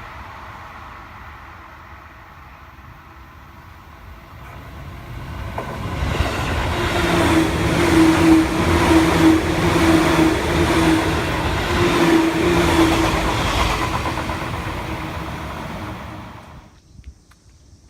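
Seibu Shinjuku Line electric train passing close by at a level crossing: one train's rumble fades, then another builds up about five seconds in and runs loud with a steady hum for several seconds before easing off. The sound cuts off abruptly near the end.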